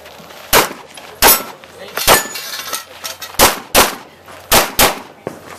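Pistol shots fired by a competitor on a practical shooting stage: seven shots at an uneven pace, the later ones in quick pairs.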